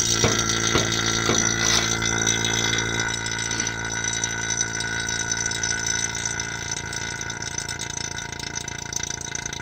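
Electric HVAC vacuum pump running steadily as it evacuates a mini-split's refrigerant line set through the manifold gauges, easing gradually a little quieter as the lines pull down toward vacuum.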